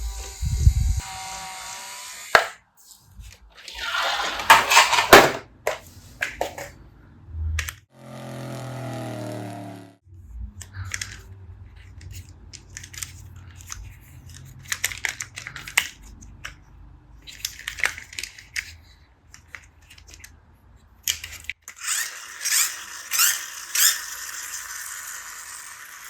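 Plastic toy vehicles being handled and moved: a run of clicks, rattles and scrapes, with a steady buzz for about two seconds partway through.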